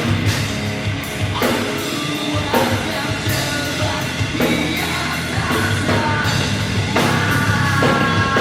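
Rock band playing a heavy rock song, the drum kit hitting a steady beat under sustained pitched instrument lines.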